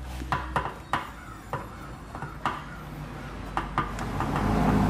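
Phillips screwdriver working a screw out of a scooter's plastic airbox: a scattered string of sharp clicks and taps of tool and screw against the plastic, then a louder rubbing, scraping noise that swells about four seconds in.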